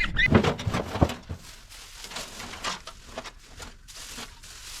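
A couple of short high peeps from young poultry right at the start, then irregular rustling and crackling, a string of small clicks and scrapes.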